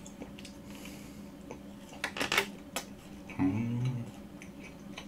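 Macaron shell cracking as it is bitten: a few sharp crunches about two seconds in, then a short closed-mouth hum while chewing.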